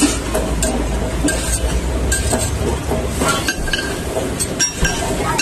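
Metal spatula cutting and scraping a dosa on a flat griddle, with repeated sharp clinks of metal on metal over a steady low rumble.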